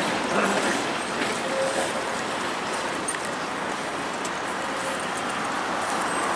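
Steady city street traffic noise.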